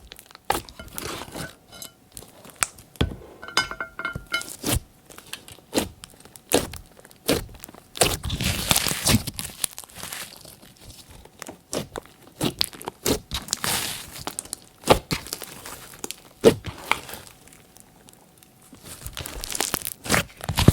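Glossy slime being kneaded and stretched by hand: a run of sticky clicks and pops, with longer wet squishing swells about halfway through and again near the end.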